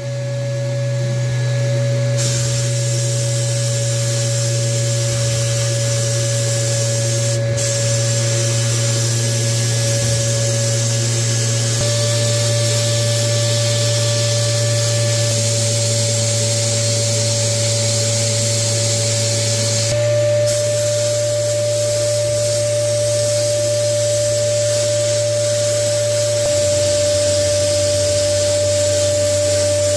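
Abrasive blast cabinet in use, the blast gun hissing steadily as it strips old paint from small model-truck parts, over a steady machine hum. The hiss strengthens about two seconds in and drops out briefly twice.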